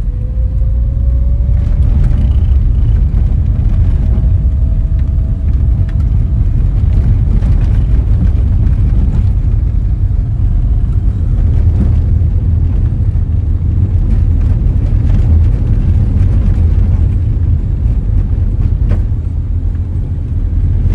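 Cabin noise of a ZAZ-1103 Slavuta driving on a rough road: a steady low rumble of engine and tyres with scattered short knocks and rattles from the bumps. An engine note rises in pitch over the first few seconds as the car gathers speed.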